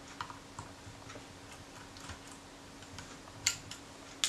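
Small metal clicks and ticks of a screwdriver and tiny screws being worked on the Kodak Retina IIIc camera body during disassembly, with a sharper click about three and a half seconds in.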